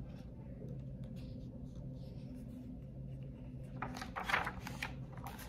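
A page of a hardcover picture book being turned: a brief papery rustle and flap about four seconds in, over a low steady hum.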